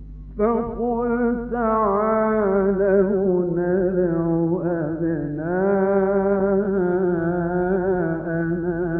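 Solo male Quran reciter chanting in the melodic mujawwad style, entering about half a second in and holding long ornamented notes with a wavering pitch, over a steady low hum.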